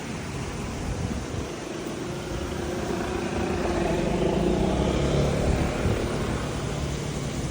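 A car passing by, growing louder to a peak about four to five seconds in and then fading, over a steady background hum of street noise.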